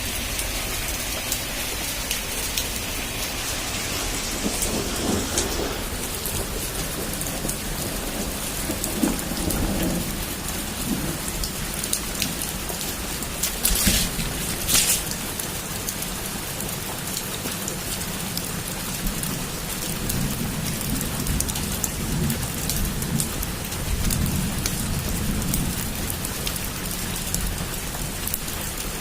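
Heavy rain pouring steadily onto a rooftop, with low rolls of thunder rumbling several times. Two sharp cracks come about halfway through.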